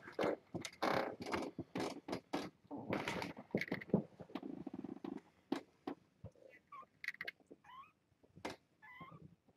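Rustling and soft knocks as a cat moves about on a towel, with a short stretch of purring about four seconds in. In the second half, several faint, short, high mews from young kittens.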